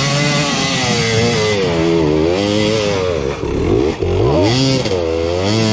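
KTM 300 XC two-stroke dirt bike engine revving hard up a hill climb, its pitch rising and falling again and again as the throttle and clutch are worked.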